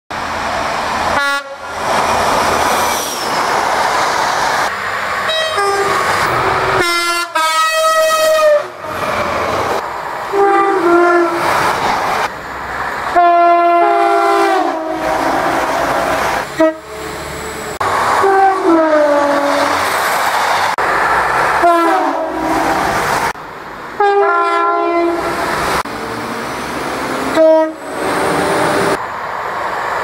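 A run of short clips of British passenger trains sounding their horns as they pass at speed, each clip cut abruptly into the next. The horns blow in high and low notes, some dropping in pitch as the train goes by, over the rush of the trains on the rails.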